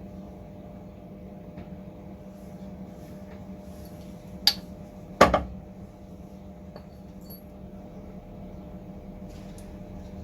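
Steady electrical hum of workshop equipment with two sharp metallic clacks about halfway through, under a second apart, the second one louder with a short ring.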